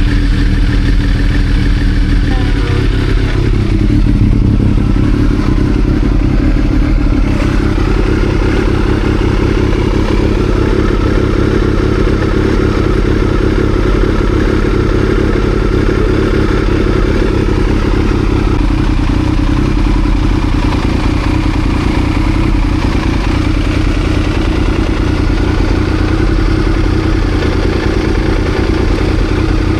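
2000 Triumph Daytona 955i's fuel-injected three-cylinder engine running steadily, its note shifting slightly about three and a half seconds in.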